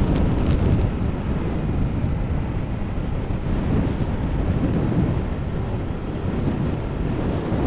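Wind buffeting the microphone of a bike rider's action camera at racing speed: a steady, low rushing rumble.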